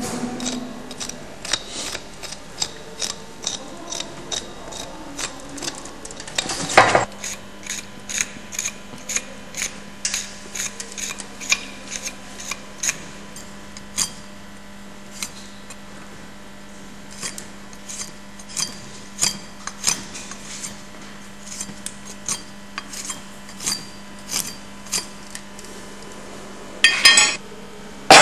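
Hand tools cutting and paring the horn of a cow's hoof: a string of short, sharp cuts and scrapes, about one or two a second, with a louder clatter about seven seconds in and again near the end.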